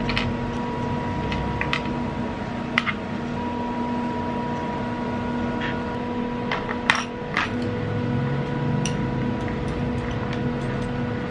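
Scattered light clinks and knocks of dishes and cutlery, a dozen or so, the loudest about seven seconds in, over a steady electrical hum.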